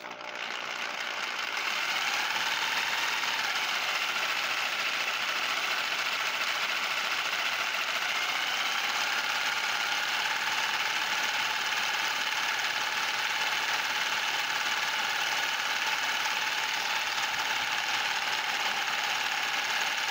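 A homemade variable-speed paint shaker, a power tool's motor rapidly shaking a clamped bottle of water-based primer back and forth to mix its settled sludge. The buzz builds over the first two seconds, then runs steadily.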